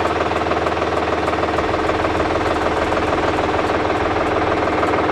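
Solis Yanmar 5015 tractor's diesel engine idling steadily.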